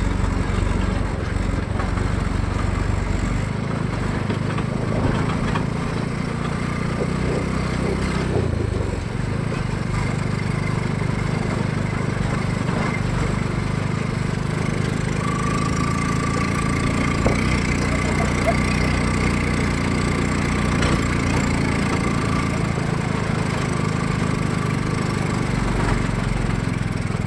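Honda Supra X 125 single-cylinder four-stroke motorcycle engine running in a homemade mini jeep, its pitch rising and falling with the throttle, with a clear drop in revs about eight seconds in.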